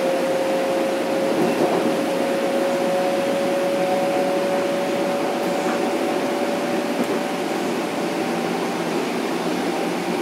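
Inside an M7 electric multiple unit: the whine of its Mitsubishi IGBT inverter and AC traction motors, a steady tone slowly rising in pitch over the rumble of the car running on the rails. The whine fades near the end.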